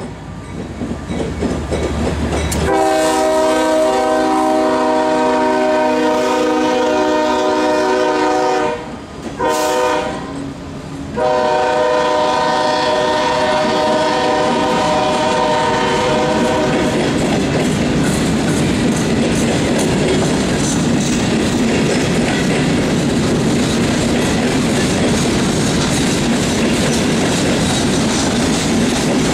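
Locomotive air horn sounding a chord of several notes in two long blasts, each about six seconds, with a short break between. After the horn stops, a steady rumble and clickety-clack of rail cars rolling past.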